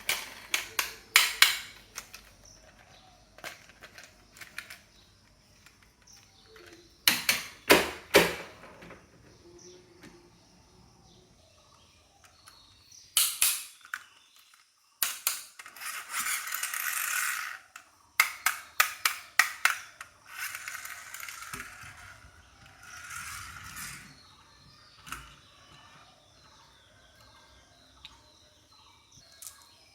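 Small toy vehicles running down a wooden HABA wavy marble-run slope: clusters of sharp wooden clacks as they drop onto and knock along the track, with several stretches of rolling rumble lasting a second or more in between.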